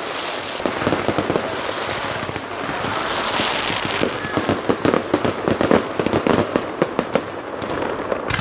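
Aerial fireworks going off in a fast barrage, many sharp cracks and bangs overlapping, with a steady crackle and hiss under them.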